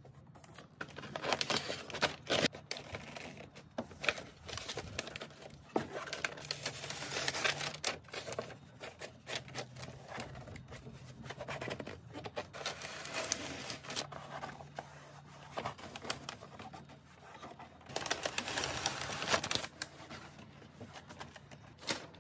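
Peel-and-stick wallpaper being laid into a wooden drawer: the paper and its backing crinkle and rustle as the backing is peeled away, and a hand rubs and smooths the paper flat, in irregular stretches of rustling and scraping.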